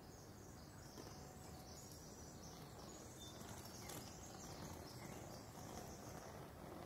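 Faint, steady running noise from inside a moving streetcar, with a high hiss that comes in about half a second in.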